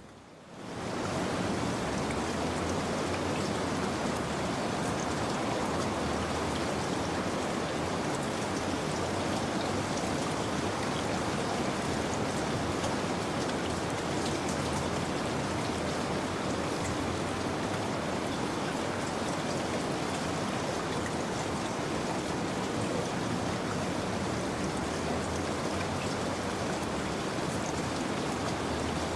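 Steady rain, a dense even hiss of falling drops that rises quickly just after the start and then holds level.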